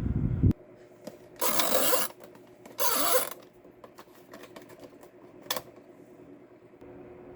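Mechanical handling noises from a 2011 Daewoo electric fan: a low thump at the start, two short scraping rushes about a second and a half apart, and a sharp click, over a faint steady hum.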